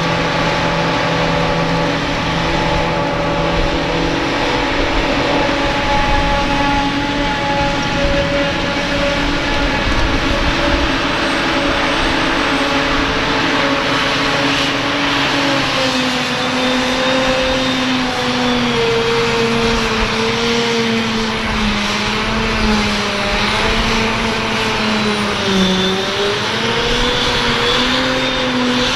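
Claas Jaguar 940 forage harvester chopping grass: a heavy diesel engine and the chopping and blowing gear running steadily under load. The engine pitch wavers up and down in the second half.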